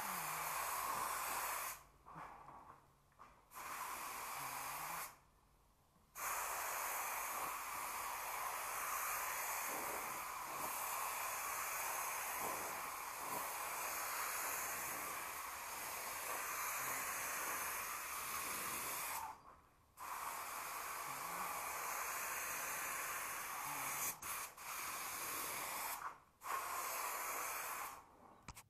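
A steady hiss that runs in long stretches, stopping and starting again several times with short breaks.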